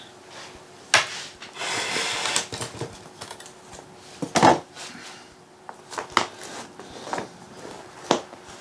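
Objects being handled at close range: sharp clicks and knocks, with a stretch of rustling about two seconds in.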